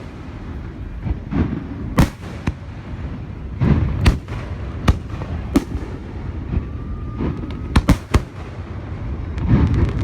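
Aerial fireworks display: a string of sharp booms and bangs every second or two, some in quick pairs, over a continuous low rumble, with a faint rising whistle of a shell going up about two-thirds of the way through.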